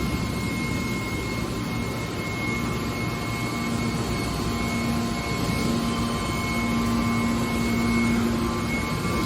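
Scrap car baler machinery running steadily: an even mechanical noise with a thin high whine, and a low hum that grows stronger about halfway through.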